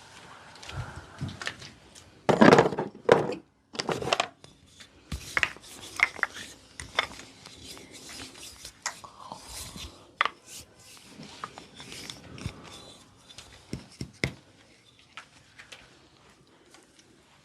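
Close-up massage and adjustment sounds: hands rubbing and scratching, with many scattered sharp clicks and crackles. The loudest scrapes come about two to four seconds in.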